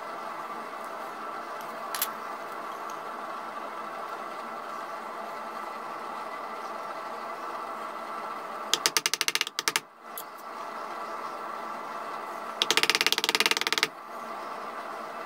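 Hand woodcarving at a bench: a steady hum is broken twice by loud bursts of rapid crackling scrapes, each about a second long, around nine and thirteen seconds in, as a carving gouge is worked into the wood of the stock.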